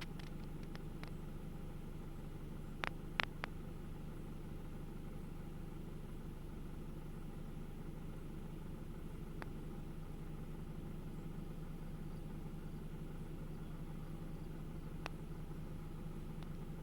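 Steady low mechanical hum, with a few short clicks about three seconds in.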